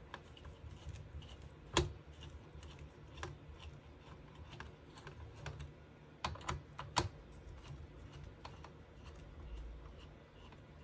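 Hand screwdriver undoing the heat-sink screws in a small-form-factor desktop PC, giving faint scattered clicks and taps of metal on metal, with a few sharper clicks about two seconds in and a quick cluster of three around the middle.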